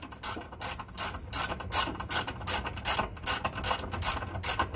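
Ratchet socket wrench clicking steadily, about four clicks a second, as a fastener is run in or out by hand.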